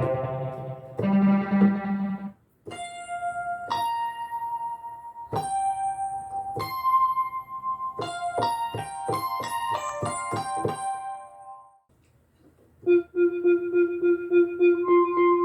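Vintage keyboard presets from Arturia Analog Lab V played on a keyboard: a held synth chord dies away, then after a short gap come single electric-piano-like notes with bright, struck attacks and a quick run of notes. After a pause of about a second, a new sound starts with a repeated, pulsing note.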